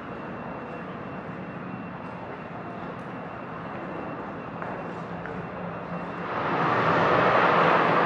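Ambient sound design of an immersive projection exhibition playing through the hall's speakers: a steady low hum under a noisy wash, which swells louder and fuller about six seconds in as the projected scene changes.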